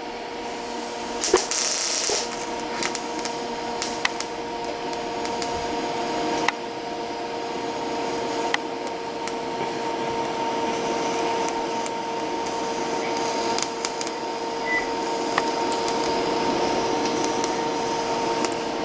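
TIG welder running while filler is added to build up a weld: a steady electrical hum with the arc's hiss and crackle, and a few sharp clicks.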